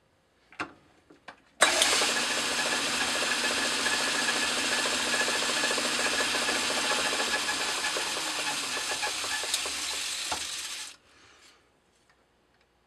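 A small metal lathe runs while a tool takes a light finishing cut on a brass boss held in a four-jaw chuck, turning it down to a quarter inch. After a couple of clicks, the lathe starts abruptly, runs steadily for about nine seconds, then stops suddenly.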